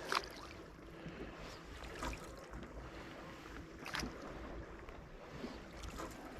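Faint wind and open-water ambience on a bass boat on a lake, with a few short, faint clicks about every two seconds.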